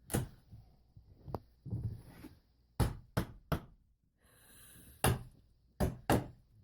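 Knocking and prying on the wooden frame of a firmly nailed-in old window as it is worked loose: about eight sharp knocks at uneven spacing, with a short scraping sound a little past the middle.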